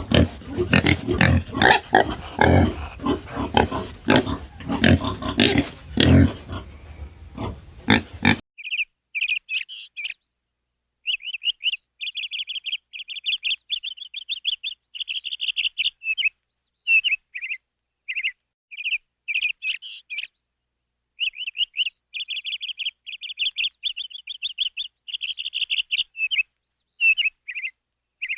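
Pig grunting and squealing. About eight seconds in it cuts off, and a small bird chirps in quick runs of high notes, broken by short silent gaps.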